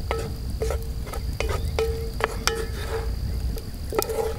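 A spoon stirring vegetables in a cast iron Dutch oven: about eight irregular knocks against the pot, each leaving a brief metallic ring. Insects chirr steadily in the background.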